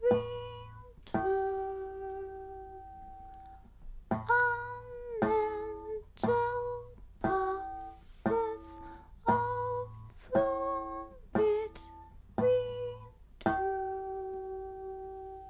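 Sparse plucked guitar notes, each ringing out and fading: two notes, a pause of about three seconds, then a slow run of single notes about one a second, some bending slightly down in pitch as they die away. The last note rings on to the end.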